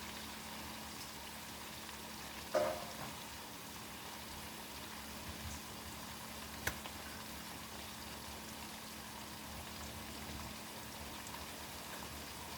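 Onions frying in oil in a pan, a steady sizzle, with a short clatter of a utensil or pan about two and a half seconds in and a single sharp click near seven seconds.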